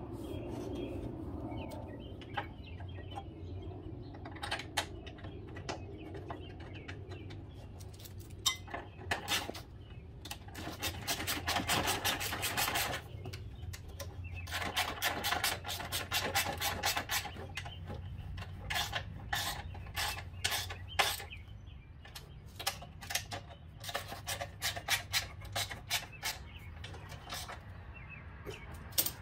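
Socket ratchet clicking in quick runs as a bolt at the mower's rear drive pulley is turned, with scattered knocks of tool on metal between. The longest runs of clicks come in the middle.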